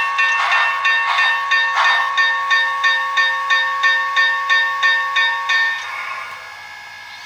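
Digital sound system of an MTH HO-scale Union Pacific Big Boy model locomotive playing steam exhaust chuffs, about three a second, over a hiss with a few steady tones. The chuffing fades out about six seconds in, leaving a quieter hiss.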